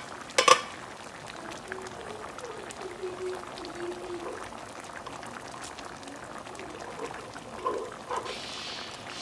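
Pan of mung bean soup bubbling steadily at a simmer, with one loud metal clank and short ring about half a second in as the stainless steel pan lid is set down.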